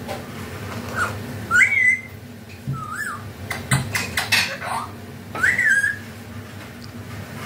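Caged parakeet giving about five short whistled calls, each rising in pitch and then falling or levelling off, with a run of sharp clicks about halfway through.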